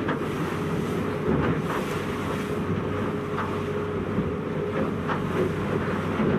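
A boat running at speed through waves: its engine drones with a steady tone, and water rushes and splashes against the hull. Wind buffets the microphone throughout.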